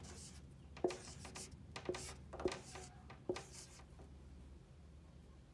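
Dry-erase marker writing on a whiteboard: several short scratching strokes, each starting with a light tap of the tip on the board, dying away about four seconds in.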